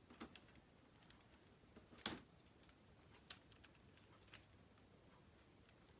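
Faint clicks and rattles of plastic K'nex pieces being handled during disassembly, a few scattered clicks with the loudest about two seconds in.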